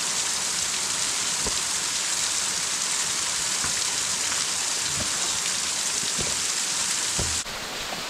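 Steady rushing noise of falling water from a waterfall, cutting in suddenly at the start and dropping a little in level near the end, with a few faint low knocks.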